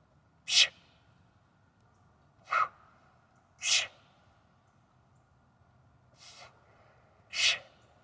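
A man's short, forceful breaths, five sharp hissing exhales a second or two apart, the fourth one faint. This is hard breathing from the effort of heavy 48kg kettlebell swings.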